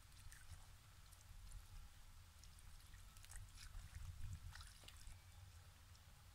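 Faint trickle and small splashes of water poured from a copper jug over raw lamb liver and kidney pieces in a wicker basket as they are rinsed by hand, coming unevenly, strongest around the middle.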